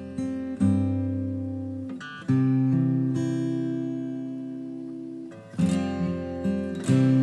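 Instrumental acoustic guitar music. Chords are strummed about four times and each is left to ring and fade before the next.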